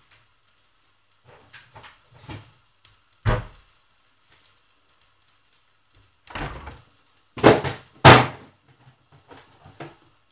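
Kitchen knocks and thuds from food being put away in a refrigerator and its door shut: a sharp knock about three seconds in, then a cluster of louder thumps a little past halfway, the loudest two about half a second apart.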